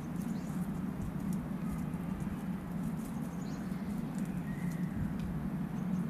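Light patter and rustle of an oriental turtle dove stepping and picking through dry leaf litter as it gathers twigs, over a steady low rumble. A couple of faint bird chirps are heard midway.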